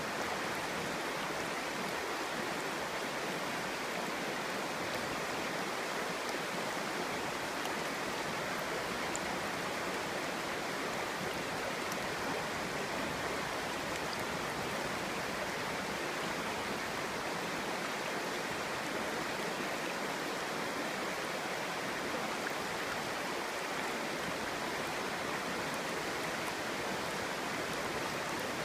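A clear stream babbling over stones: steady running water with no change in flow.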